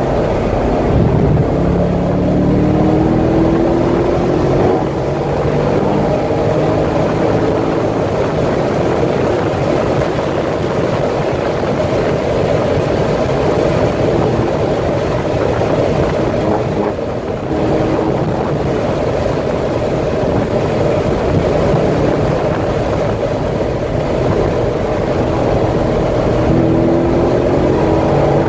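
C6 Corvette Z06's 7.0-litre LS7 V8 running hard at track speed, under dense wind and road noise. Its pitch climbs in rising sweeps as it accelerates near the start and again near the end. It eases off briefly a little past halfway.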